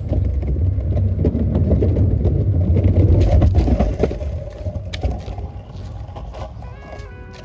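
Electric longboard's wheels rolling over wooden boardwalk planks: a steady low rumble with scattered clicks from the plank joints. The rumble eases off about four seconds in, and faint music comes in near the end.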